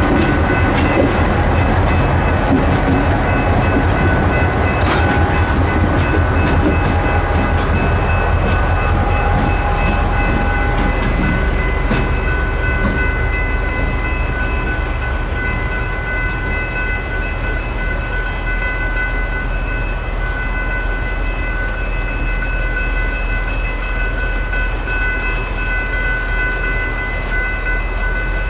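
A train rolling through a railroad crossing, its wheels clacking and rumbling, louder in the first ten seconds or so. The crossings' General Signals Type 3 electronic bells ring steadily throughout.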